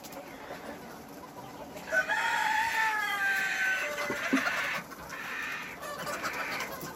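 A desi (native village) rooster crowing once, a long call of about three seconds starting about two seconds in and falling slightly in pitch, over the clucking and chatter of a chicken flock.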